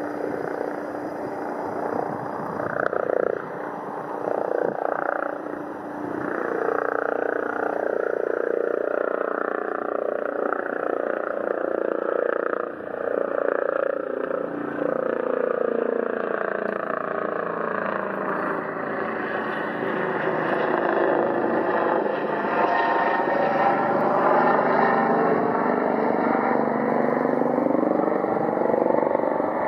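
Piper PA-28 Cherokee light aircraft's piston engine and propeller running at low power as it taxis and turns on the runway, a steady drone that grows louder over the last third.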